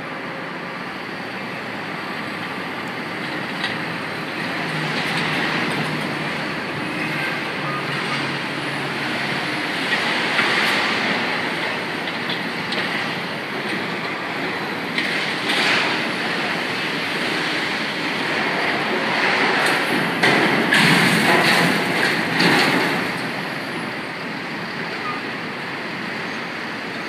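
Demolition excavators with grapple jaws working: a steady machine din with clanking and scraping of concrete and steel debris as it is picked up and loaded into a dump truck. It is loudest for a few seconds about twenty seconds in.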